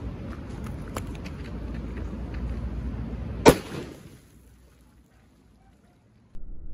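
Wind buffeting the microphone, with a few faint crackles, then a single sharp bang from a cherry bomb firecracker about three and a half seconds in. After the bang the sound drops away almost to silence.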